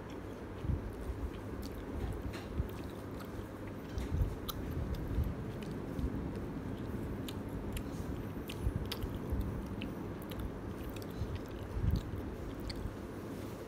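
A person biting into and chewing a slice of ham-and-pineapple pan pizza, with small crunches and many short mouth clicks.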